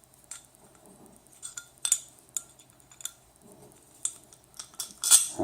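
Small hardware parts, brackets and screws, clicking and clinking together as they are handled and fitted, a dozen or so scattered light knocks with a louder one near the end.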